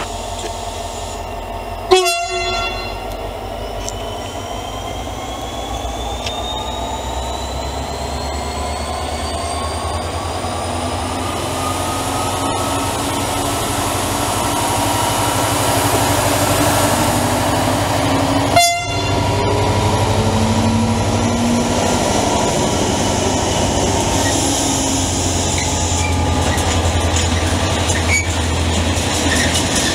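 A freight train hauled by a locomotive runs past, its engine and rolling wagons rumbling steadily and slowly getting louder, with a whine that rises in pitch over the first ten seconds. Two brief, sharp horn toots sound, one about two seconds in and one about nineteen seconds in.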